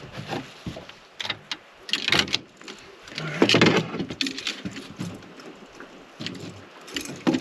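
Irregular clunks, rustles and rattles of a landing net, fish and fishing gear being handled on a boat deck, loudest about three and a half seconds in.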